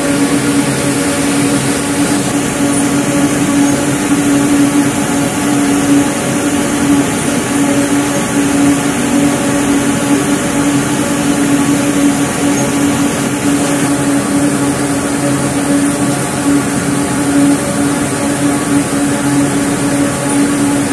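Compact ring spinning frame running in a spinning mill: a loud, steady mechanical hum with a strong constant low tone and a whirring hiss above it.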